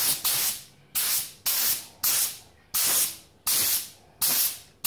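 A paint spray gun with a 1.8 mm nozzle spraying acrylic black in short trigger pulls, putting on a light first coat. It gives about seven hisses, each one cutting in sharply and tailing off, roughly one every 0.7 seconds.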